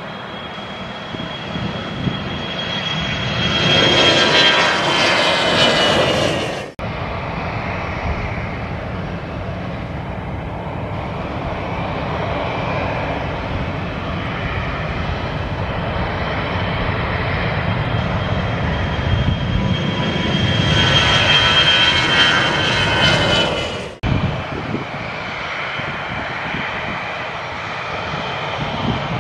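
Narrow-body twin-jet airliners taking off one after another at full thrust: a steady jet roar that swells as each plane passes, with a high fan whine that slowly falls in pitch. The sound breaks off sharply twice, about seven seconds in and again later, as one takeoff cuts to the next.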